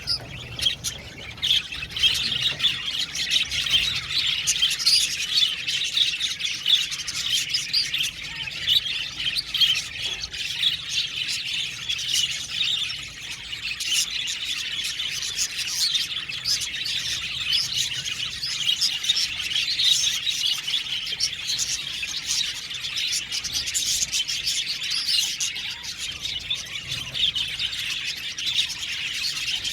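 A flock of budgerigars chirping and warbling together, many birds calling over one another without a pause, with now and then a sharper squawk.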